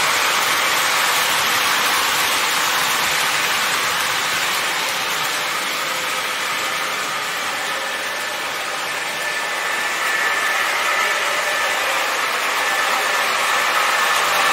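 O scale model train running on its three-rail track: a steady rumble and hiss of the wheels, with the MTH ES44AC diesel's electronic engine sound running under it. It sags a little midway and swells again about two-thirds through as the locomotive comes near.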